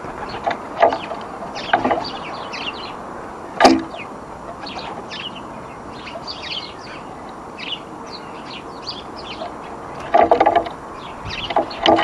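Small garden birds chirping and twittering around a seed feeder, with loud fluttering wingbeats as birds fly in and out: a couple near the start and a longer burst about ten seconds in. A single sharp knock comes about four seconds in.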